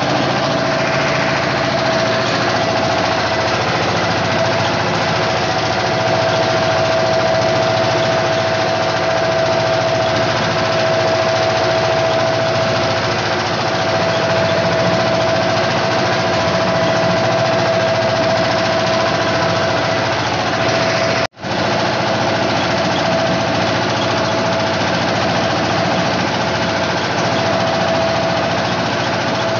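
Small wooden fishing boat's engine running steadily under way, with a steady high hum on top. The sound cuts out for an instant about two-thirds of the way through.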